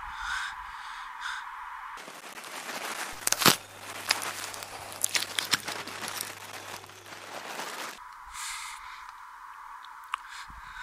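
Corvid cawing, a few short calls in the first two seconds and again near the end. In between comes a stretch of crackling with sharp cracks, the loudest about three and a half seconds in.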